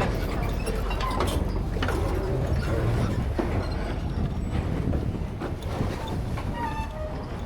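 Cross-river ferry's engine running with a steady low rumble, with faint voices of people around.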